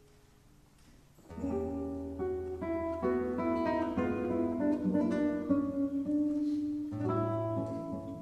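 Nylon-string classical guitar played solo in a waltz, plucked melody over chords. It comes in after a brief near-quiet pause, about a second in.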